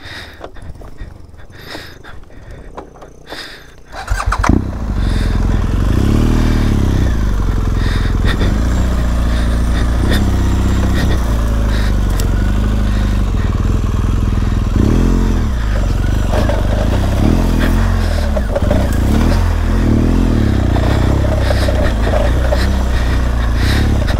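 BMW R 1200 GS boxer-twin motorcycle engine, fairly quiet at first. About four seconds in it comes up loud as the bike is ridden up a dirt trail, the revs rising and falling again and again as the throttle is worked.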